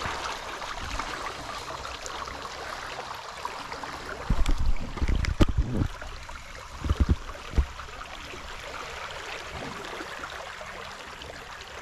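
Shallow river water running steadily, with a cluster of low thumps and a couple of sharp knocks in the middle, the loudest part.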